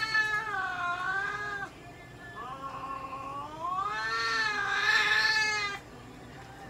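A long-haired domestic cat yowling while restrained for treatment: two long, drawn-out yowls that waver in pitch. The first trails off under two seconds in, and the second, louder one ends suddenly about a second before the end. This is the protest of a cat that is unhappy at being held and handled.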